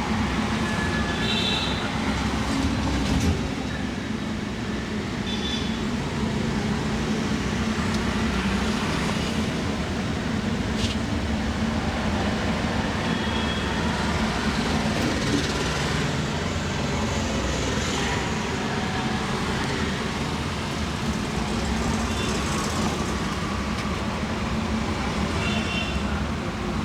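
Steady low rumble of street or vehicle noise with a constant hum, broken a few times by brief high-pitched tones and once by a sharp click.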